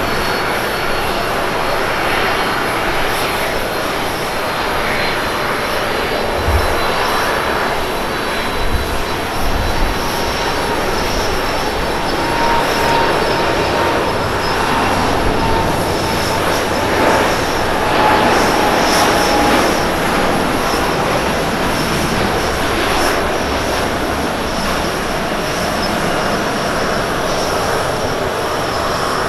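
Airbus A350-900's Rolls-Royce Trent XWB turbofans at takeoff thrust: steady, loud jet noise through the takeoff roll and climb-out, with a faint whine in the middle.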